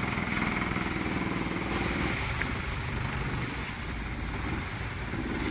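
Long-tail boat's engine running steadily at cruising speed, with water rushing along the hull.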